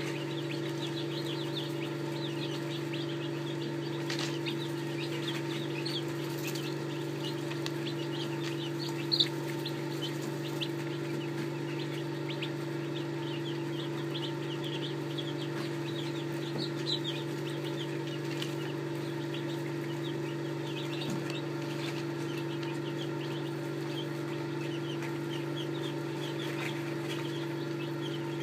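Day-old Red Ranger chicks peeping constantly in many short, high cheeps, over a steady low hum. A single sharp click about nine seconds in.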